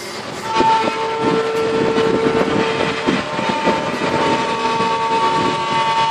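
Steady whine from a truck-mounted crane's hydraulics as it lowers a portable compressor onto its wheels. A lower tone under the whine drops out about three seconds in.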